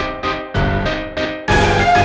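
Background music: an upbeat instrumental track with plucked or keyboard notes over a steady low beat, growing fuller and louder about one and a half seconds in.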